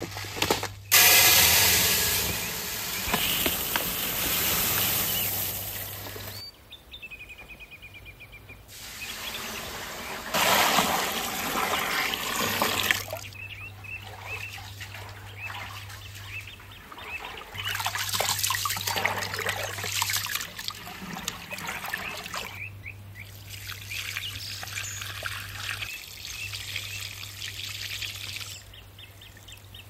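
Rice being washed in a large aluminium pot: water pouring and splashing in several loud spells, swishing as the grains are rubbed by hand, and the starchy rinse water poured off onto the ground. Birds chirp in the quieter pauses.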